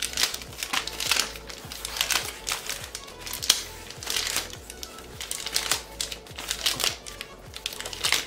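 Plastic piping bag crinkling and crackling in irregular bursts as it is twisted and tied off with an elastic band, over background music.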